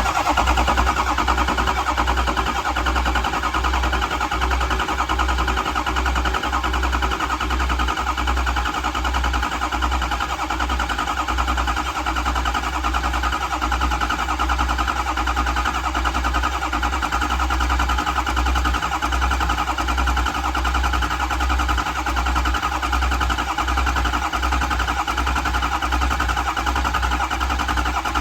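Ford 6.0 Power Stroke V8 turbo-diesel being cranked over by its starter motor in one long, continuous crank, with a steady starter whine over a rhythmic chug of compression strokes. The engine never catches, the sign of a crank-no-start condition.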